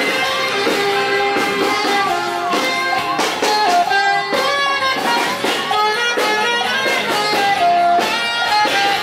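Music playing steadily throughout, with many quick-changing melodic notes.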